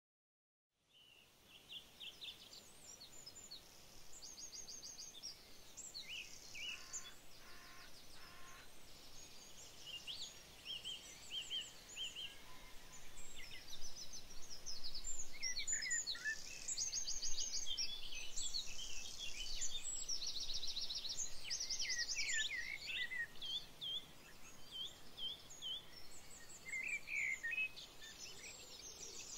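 Songbirds singing: a busy mix of chirps and rapid trills from several birds, fading in about a second in over a faint background hiss.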